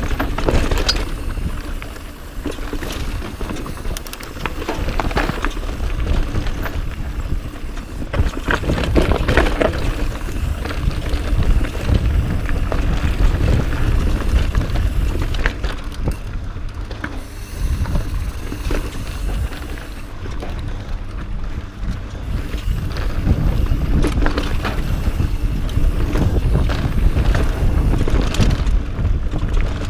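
Wind buffeting an action camera's microphone during a mountain-bike descent, with tyres rolling over dirt and rock and short knocks and rattles from the bike hitting bumps.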